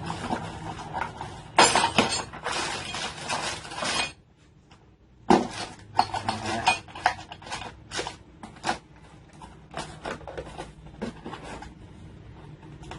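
Metal parts of a chainsaw adapter kit clinking and clattering as they are handled and fitted onto an angle grinder: a busy stretch of clatter, a brief pause about four seconds in, then a series of sharp separate clicks and knocks.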